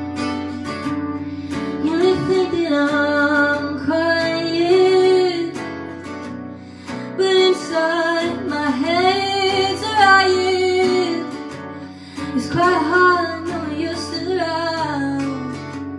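A girl singing to her own strummed acoustic guitar. The guitar plays alone at first, and the voice comes in about two seconds in, singing several phrases with short breaks between them.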